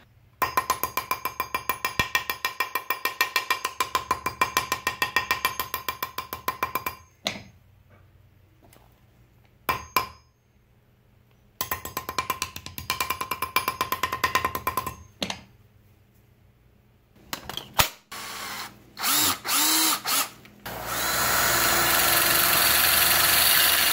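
Claw hammer striking 6-gauge solid copper wire on a concrete block in fast runs of blows, about six a second, each with a bright metallic ring, flattening the wire into spot-welder electrode tips. Near the end a cordless drill whirs in short bursts, then spins the wire tip against a bench grinder wheel in a steady, loud grinding noise.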